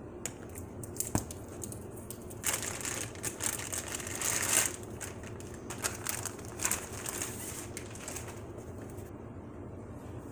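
Clear plastic packaging sleeve crinkling and crackling as a laptop is handled and slid out of it. The rustling is busiest from about two and a half to five seconds in and dies down near the end.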